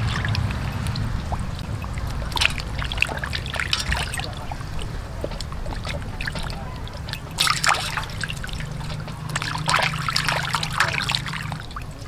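Water sloshing and splashing in a stainless steel basin as a whole raw chicken is rubbed, turned and lifted by hand, with water trickling off it; the splashes come in irregular bursts, strongest about two and a half seconds in and again in the second half.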